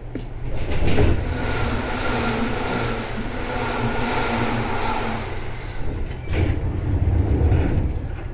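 Seibu 2000 series DC electric commuter train running, heard from inside the car: a rumble of wheels on rail with a steady hum from the drive between about one and five seconds in, and the rumble growing louder again near the end.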